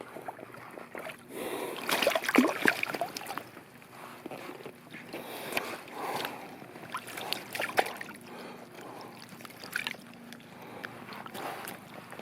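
Lake water sloshing and splashing in small, irregular bursts as a landed fish is handled at the surface, the busiest splashing about two seconds in.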